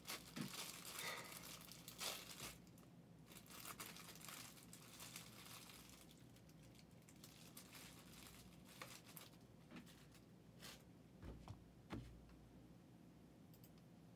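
Faint crinkling of plastic packaging being handled, in scattered bursts over the first several seconds, then a few soft knocks and two low thumps near the end.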